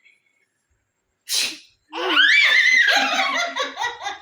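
A single short sneeze about a second in, followed by a baby's loud high-pitched squealing laugh that breaks into quick rhythmic giggles near the end.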